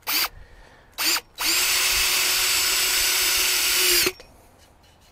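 Cordless drill driving a 2.5-inch screw through a deck board into a wooden post. A short trigger blip about a second in, then a steady run of nearly three seconds that winds down and stops as the screw seats.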